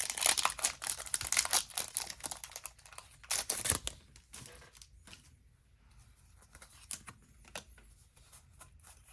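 Foil wrapper of a Pokémon trading card booster pack being torn open and crinkled for about four seconds, then only quiet, scattered rustling.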